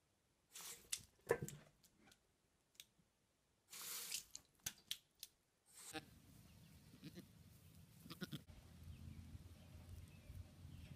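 Tap water splashing into a sink basin in short spurts, then from about six seconds in a low steady outdoor rumble with a few faint bleats of a baby goat.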